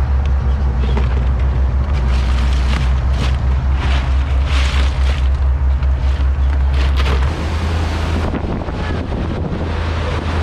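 Fishing boat's engine running under way, a steady low drone, with wind buffeting the microphone in gusts. The engine note shifts about seven seconds in.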